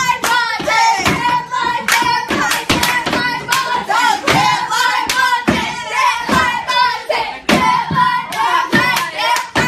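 A group of young people singing in rhythm while clapping and stomping on classroom desks, with sharp claps and thumps at a steady beat of about two to three a second under the voices.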